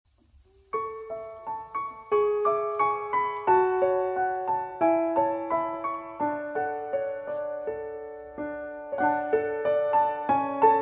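Background piano music starting just under a second in: a slow melody of repeated notes over lower notes that step downward.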